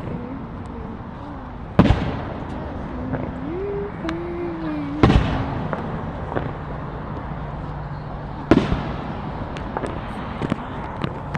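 Fireworks going off: three loud bangs a few seconds apart, each trailing off briefly, then a few smaller pops near the end.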